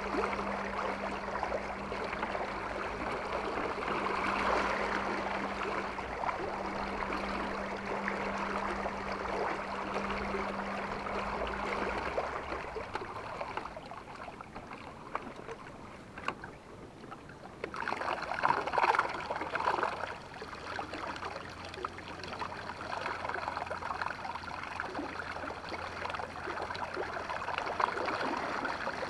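Water lapping and splashing against the aluminium hull of a small jon boat under way, with the steady low hum of its electric trolling motor. The hum stops about twelve seconds in, and a fainter, lower hum comes back a few seconds later.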